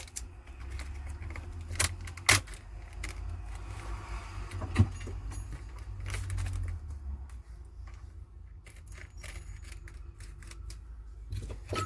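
Small sharp clicks and scraping as the battery of a Huawei P Smart 2019 is pried out of the phone, with the loudest clicks about two seconds in and near five seconds.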